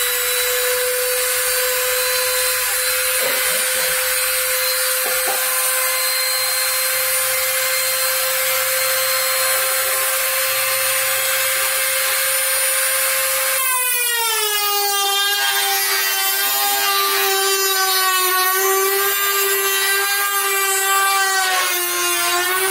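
Wen rotary tool in an Edgetune Pro II sharpener running at a steady high whine as its grinding stone is run along a snowboard's steel edge. About two-thirds of the way through, the pitch drops a little and the sound turns rougher and wavering.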